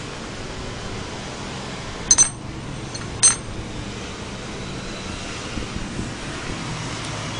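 Two sharp metallic clinks, a quick double one about two seconds in and a single one about a second later, over a steady background hum.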